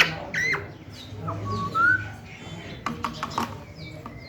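A pet green parrot whistling and chirping: short bending whistle notes in the first two seconds, then a few sharp clicks around three seconds in.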